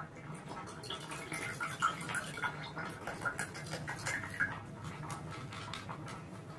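Orange juice pouring from a plastic bottle into a ceramic mug, gurgling and splashing, stopping about four and a half seconds in. A low steady hum runs underneath.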